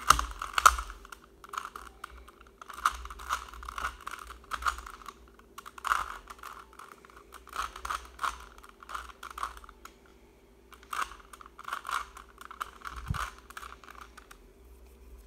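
Plastic Rubik's Cube being twisted by hand, its layers turning in quick runs of clicks and clacks broken by short pauses, with a quiet gap about ten seconds in.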